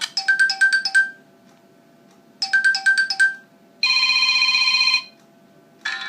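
Preset ringtones of a Huawei Ascend Y330 smartphone previewed one after another. A short four-note chime plays twice with a pause between, then a steady buzzing tone lasts about a second, and a different melody begins near the end.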